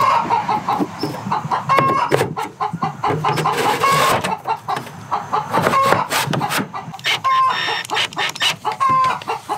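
Hens clucking and cackling in a string of short, sharp calls a second or two apart: the egg song hens make around laying. A few light clicks and knocks fall among the calls.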